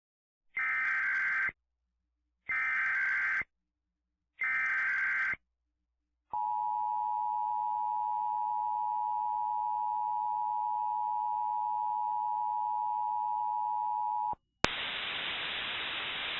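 Emergency Alert System SAME header: three shrill data-tone bursts about a second long each, followed by the EAS two-tone attention signal held steady for about eight seconds and cut off abruptly. A click and a steady hiss of static follow near the end.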